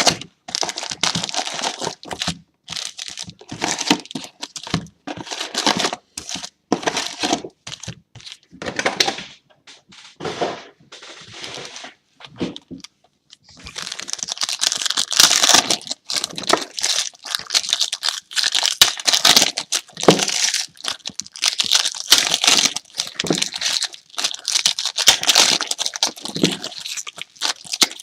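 Plastic wrapping on a box and packs of 2015-16 Hoops basketball cards being torn open and crinkled. The first half is short tearing bursts with pauses; from about halfway the crinkling runs almost without a break.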